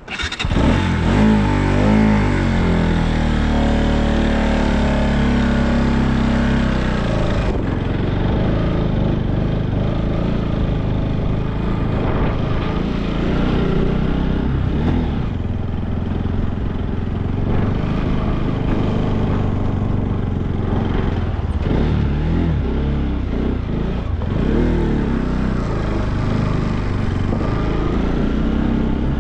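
Motorcycle engine heard from the rider's seat. It comes in suddenly and then runs steadily as the bike is ridden along a rough dirt track, its pitch shifting with the throttle.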